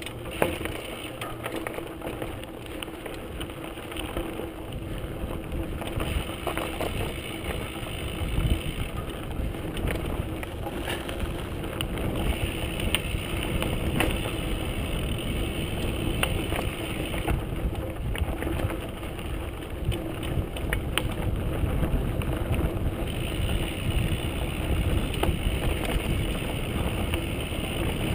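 Mountain bike rolling fast down dirt singletrack: the tyres run steadily over the dirt, with frequent knocks and rattles from the bike and camera mount as it goes over bumps and rocks.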